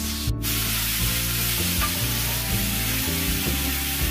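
Thinly shaved ribeye sizzling in a hot cast iron pan on a gas burner as it is turned with metal tongs, with background music.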